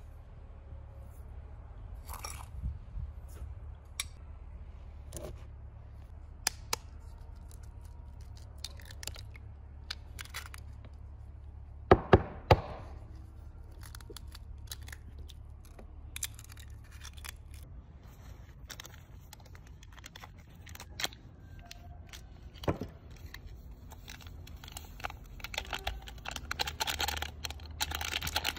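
Close-up food-prep handling sounds on a plastic mixing bowl: scattered light taps and clicks, then two or three sharp knocks about twelve seconds in as an egg is cracked on the bowl. Near the end comes the crinkling and tearing of a small packet being ripped open.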